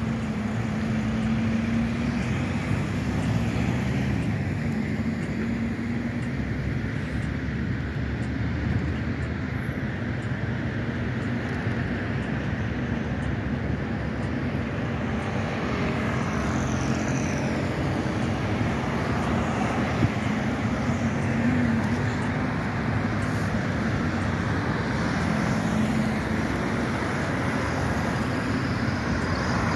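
City road traffic at a multi-lane intersection: cars driving past with steady engine and tyre noise, and one short knock about two-thirds of the way through.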